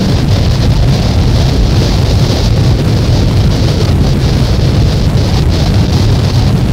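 Noise music from a cassette album: a loud, unchanging wall of dense noise, heavy rumble underneath and a band of hiss on top, with no beat or melody.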